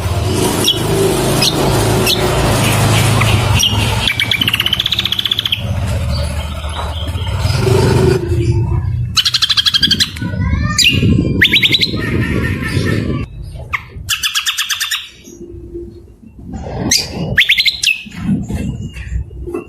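Songbirds singing a loud, varied medley of rapid buzzy trills, whistled glides and harsh chattering phrases, a mix of cucak kombo (greater green leafbird) song and other birds' rough calls. A low rumble runs underneath for roughly the first half.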